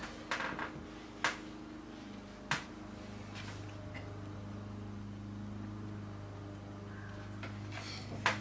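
A handful of light, sharp clicks or taps spread through the quiet, the clearest about a second and two and a half seconds in, over a faint steady low hum that becomes steady about three seconds in.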